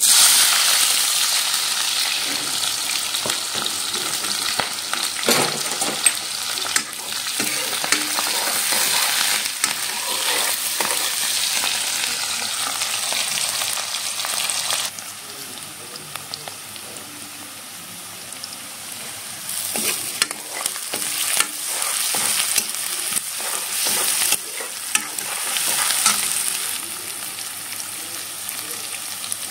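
Sliced red onions sizzling in hot oil in a kadai, the hiss starting loudly at once as they are tipped in. The sizzle eases about halfway and swells again later, with scattered clicks and scrapes of a spoon stirring them.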